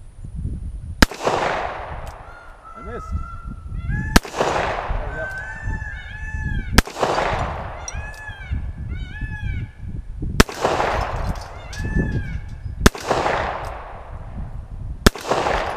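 Six shots from a Rock Island Armory M200 .38 Special revolver fired slowly in single action, a few seconds apart, each followed by a long ringing echo. Between the early shots, peacocks scream repeatedly in the background.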